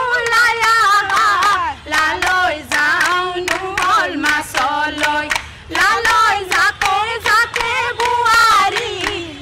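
A group of women singing a Jeng Bihu folk song together, accompanied by rhythmic hand clapping.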